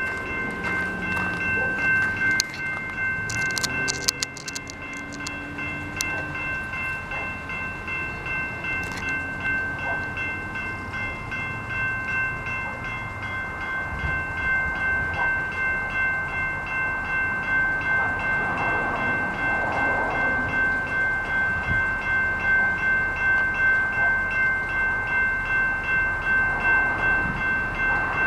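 Railroad grade-crossing warning bell ringing at an even, rapid beat, warning of an approaching train, with some fainter lower tones in the first few seconds.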